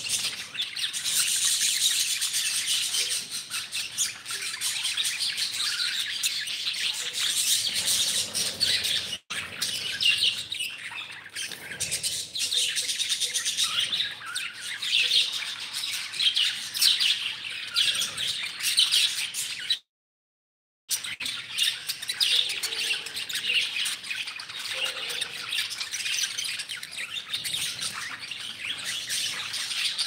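A flock of caged budgerigars chattering continuously, a dense mix of many overlapping high chirps and warbles. The sound cuts out completely for about a second past the middle.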